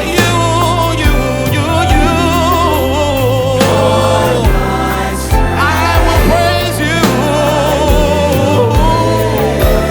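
Live gospel worship song: vocalists sing long, wavering lines over a band of keyboards, bass and drums.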